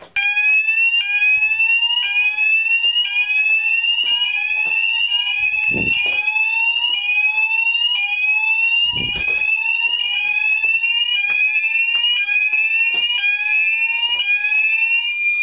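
Several electronic fire alarm sounders going off together in a full system alarm, each repeating a rising sweep about once a second, out of step with one another; a steady continuous alarm tone joins in about two-thirds of the way through. Two dull thumps come near the middle.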